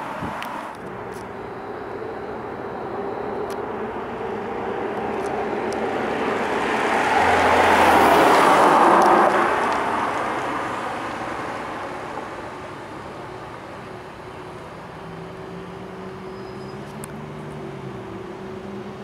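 Ferrari 488's twin-turbo V8 driving past: the engine and tyre noise builds over several seconds to a peak about eight seconds in, then fades as the car pulls away. A steady low engine hum from slow-moving cars follows.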